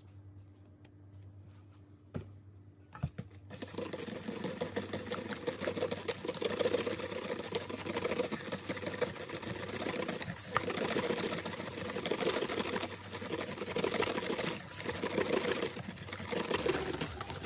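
Wire whisk beating thick cake batter in a stainless steel bowl: a fast, continuous clatter of the wires against the steel, starting a few seconds in.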